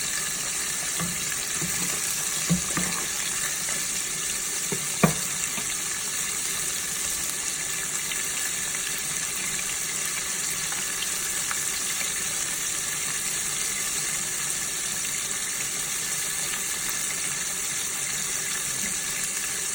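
Shrimp deep-frying in hot oil: a steady sizzle, with a couple of sharp pops or clicks about two and a half and five seconds in.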